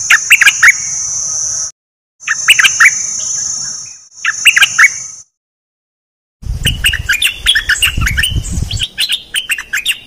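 Caged bulbul kept as a decoy bird, singing quick bubbling phrases. It comes in short recordings cut together with silent gaps between them. Through the first half there is a steady high-pitched hiss behind the song.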